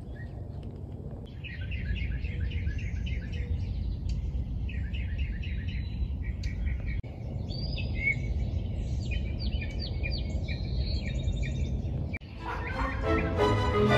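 Songbirds singing: quick series of repeated chirps and trills over a low steady rumble. Music comes in near the end.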